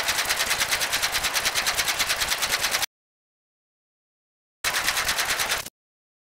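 Sound effect of rapid, evenly spaced mechanical clicking, about ten clicks a second, running for nearly three seconds. After a pause, a second, shorter run of the same clicking lasts about a second.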